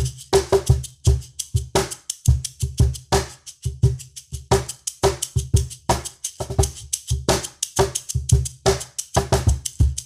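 Cajón played in a steady groove: deep bass tones and sharper slaps, with a hand shaker rattling along on the beat. Picked up by a Shure SM-57 overhead and a Tascam TM-50C inside the cajón.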